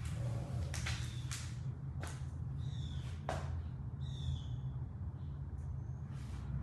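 Footsteps on laminate flooring: a handful of sharp, irregular taps, with a few short high squeaks, over a steady low hum.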